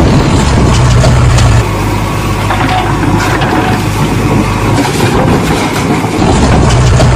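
Engine sound effect of a heavy vehicle running steadily, louder for the first second and a half and again near the end.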